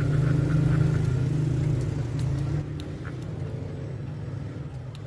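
An engine running with a steady low hum, louder for about the first two and a half seconds, then easing off, with a few faint clicks above it.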